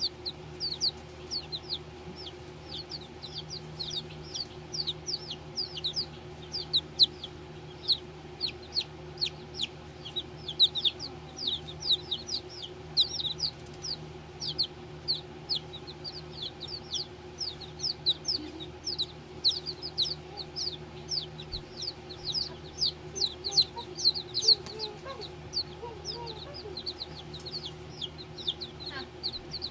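Baby chickens peeping continuously: many short, high, downward-sliding peeps, several a second, over a steady low hum.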